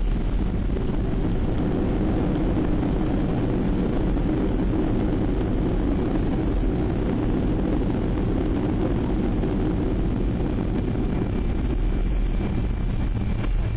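Boeing 737-200's Pratt & Whitney JT8D turbofan engines and airframe noise heard from inside the cabin, a steady low roar as the airliner rolls along the ground after landing.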